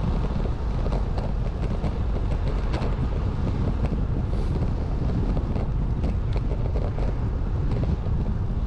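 Wind buffeting a GoPro's microphone as it moves along the road on a bicycle: a steady, loud low rumble with a rushing hiss above it.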